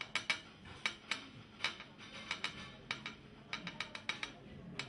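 Small brass cylinders clicking and tapping against each other and the worktable as bundles of brush hair are prepared in them: a dozen or more sharp clicks in quick, irregular clusters.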